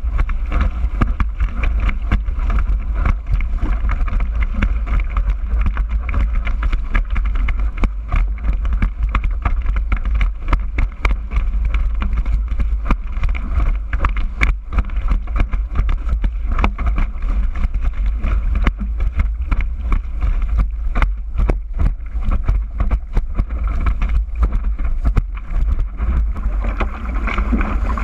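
Wind buffeting an action camera's microphone as a kitesurfer rides a surfboard at speed, with a constant heavy rumble and the board's rapid, irregular knocks and slaps against the chop.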